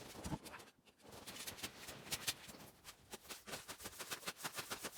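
Crunching and clicking in cold, deep snow, rapid and irregular, from someone moving about and handling the log sled; there is a short lull about a second in.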